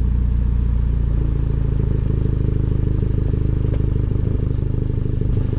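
Exhaust of a 2014 Honda Civic LXR's 2.0-litre four-cylinder idling steadily through a Superedition electronic exhaust cutout set open, a much deeper rumble than with the valve closed.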